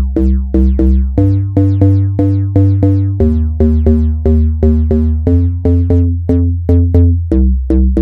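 Waldorf Microwave XT digital synthesizer playing a rapid run of short pitched notes, about four a second, through its low-pass filter. Each note starts bright and quickly darkens, and the bass note shifts about every two seconds.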